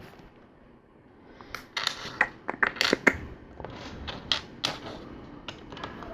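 Plastic LEGO bricks clicking and clattering as they are handled and pressed together, a quick run of sharp clicks starting about a second and a half in and thinning out near the end.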